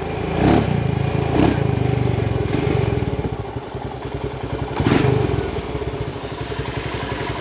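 Motorcycle engine running with a steady low beat, briefly getting louder three times: about half a second in, at about a second and a half, and near five seconds.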